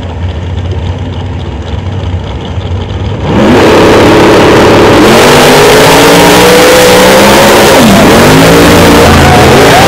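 Drag racing cars idle at the starting line with a low rumble. About three seconds in, their engines go to full throttle and turn very loud as the cars launch down the quarter mile. The engine pitch climbs, then drops sharply near the end at a gear change and climbs again.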